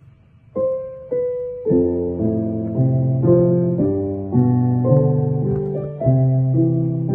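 Background piano music: after a quiet half second, two single notes ring out, then a steady run of notes about twice a second.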